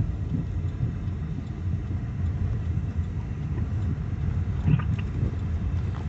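Chevy Malibu driving slowly, heard from inside the cabin: a steady low rumble of engine and road noise.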